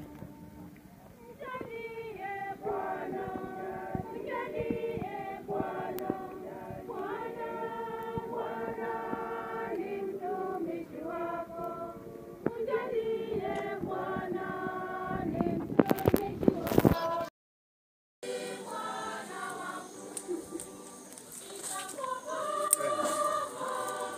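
A crowd of men, women and children singing together in slow, long-held notes. About two-thirds of the way through a loud burst of crackling noise hits the microphone, the sound cuts out for about a second, and the group singing picks up again.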